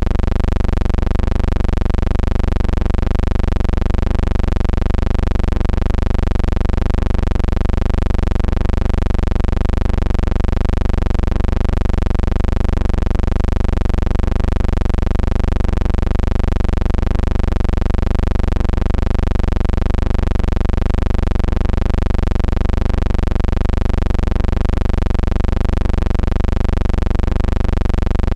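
Steady low hum with a slow, regular waver, without speech or crowd noise.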